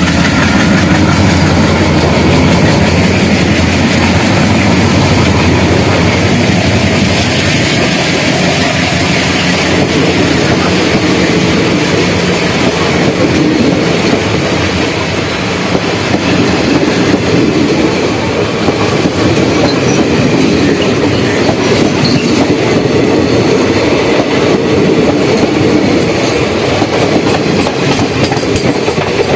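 Twin ALCO WDM-3D diesel-electric locomotives pull away close by under power, with a deep engine throb at first. Then the express coaches roll past with a steady clickety-clack of wheels over rail joints.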